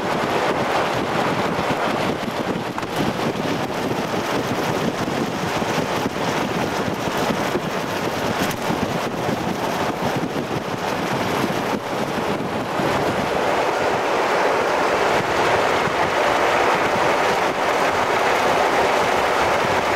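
Steady road and wind noise of a vehicle driving along a highway, with wind buffeting the camcorder microphone. It grows a little louder about two-thirds of the way through.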